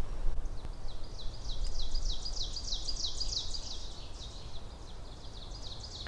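Four ovenbirds singing in turn around the listener, their songs overlapping. Each song is a rapid run of repeated high, down-slurred notes, the familiar ovenbird "teacher-teacher" chant. The singing starts about half a second in, is loudest two to three seconds in, and fades after that.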